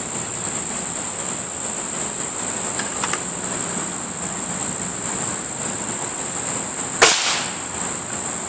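A single shot from a .22 Beeman RS2 break-barrel spring-piston air rifle about seven seconds in: one sharp crack with a short tail. A steady high drone of insects runs underneath.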